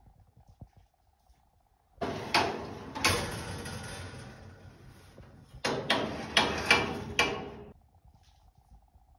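Stainless steel grill parts sliding and clanking. Starts about two seconds in with a long scraping slide, then a quick run of sharp metal clanks before it stops near the end.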